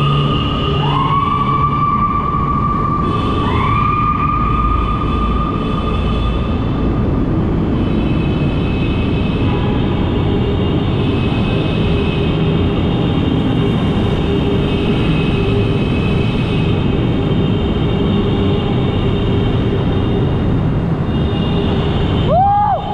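Loud, steady rushing road and traffic noise heard while riding through a road tunnel. A siren-like tone rises and holds three times in the first few seconds, and a short whooping siren comes near the end.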